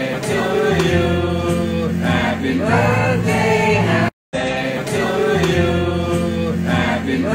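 Singing over music, with a steady bass line under the voices. It cuts out abruptly a little past halfway and starts again a moment later.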